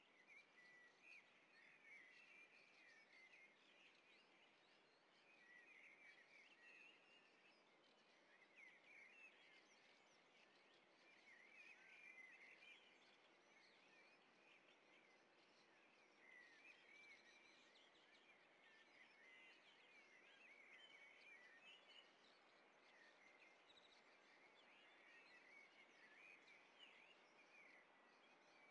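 Faint chirping and twittering of birds: clusters of quick, high little calls coming and going every few seconds over a soft outdoor hiss.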